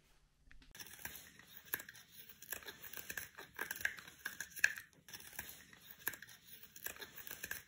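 Faint, irregular crackling and rustling with many small sharp clicks, starting about a second in.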